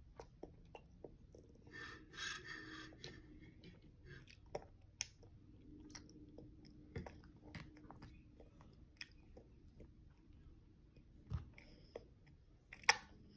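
Faint chewing and mouth sounds of a toddler eating noodles, with scattered small clicks and taps of a fork against the dishes. A sharp click near the end is the loudest sound.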